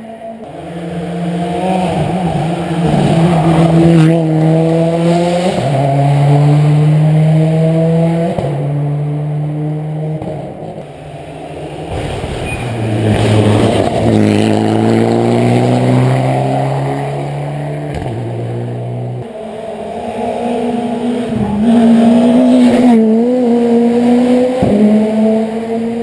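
Rally car engine at high revs, shifting through the gears with its pitch stepping and rising between shifts. It passes very close about halfway through and is loudest then.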